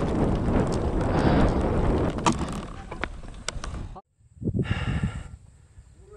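Wind rushing over an action camera's microphone, with road-bike rolling noise and a few sharp clicks, dying down as the bike slows to a stop. About four seconds in, the sound cuts off abruptly and a brief voice follows.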